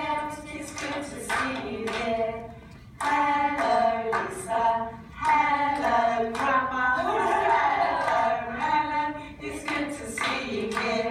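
A woman singing a song, in phrases of held notes that step up and down in pitch, with short breaks between the phrases.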